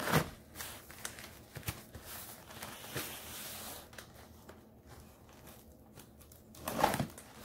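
Knife slitting the packing tape on a cardboard shipping box, with cardboard rustles and scrapes; a longer tearing hiss runs from about two seconds in, and a louder scrape comes near the end.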